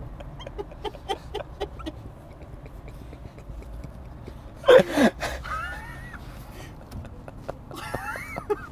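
A man laughing, mostly quiet and stifled, with one loud burst of laughter falling in pitch about five seconds in and a few shorter laughs near the end.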